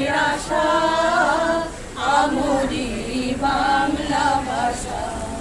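A mixed group of men and women singing a Bengali song together unaccompanied, the singing stopping shortly before the end.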